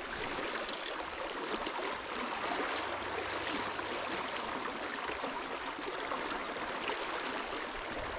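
Creek water flowing steadily over a shallow riffle, an even, unbroken rush of current.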